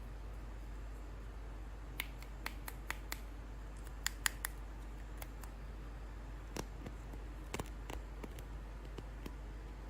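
Scattered light clicks and ticks of plastic toy packaging being handled and opened, sounding from about two seconds in to near the end, over a steady low hum.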